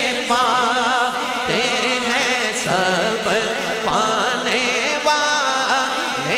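Naat singing: a voice holding long, wavering notes in a drawn-out melisma with no clear words.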